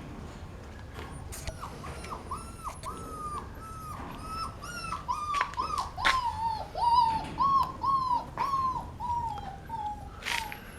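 A puppy whining in a long string of short, high yelps, about two a second, slowly dropping in pitch, with a few sharp knocks among them.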